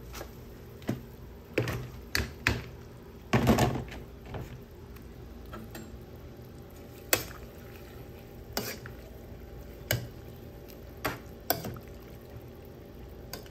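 Spoon knocking and scraping against a pot of boiling water as water spinach is pushed in and stirred: about ten irregular clinks, the loudest a longer clatter about three and a half seconds in.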